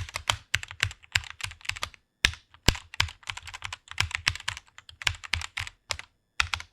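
Computer keyboard being typed on quickly: a fast, uneven run of key clicks with short pauses, one about two seconds in.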